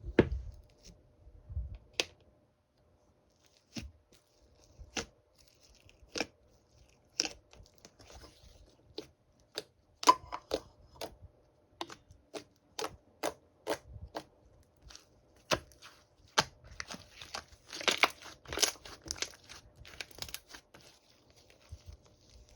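Irregular sharp clicks and crinkly crackles, roughly one a second at first, bunching into a denser crackling stretch about two-thirds of the way through.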